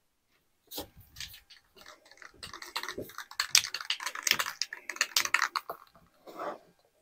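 Aerosol can of high-heat spray paint being shaken, its mixing ball rattling in a quick run of clicks, about three a second at its busiest in the middle of the stretch.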